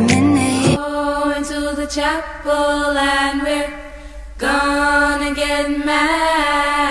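A voice chanting or singing long, held notes in two long phrases, with a short break about four seconds in.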